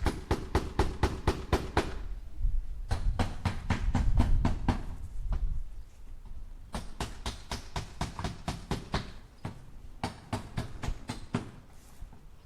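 Hammer tapping nails into wood in quick runs of strikes, about five a second, with short pauses between runs. A low rumble sits under the second run.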